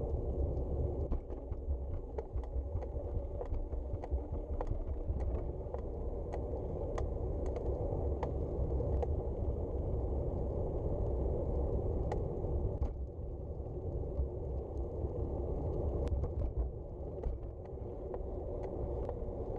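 Riding noise from a bicycle rolling along a paved path: a steady low rumble of wind on the microphone and tyres on asphalt, with scattered light clicks and ticks.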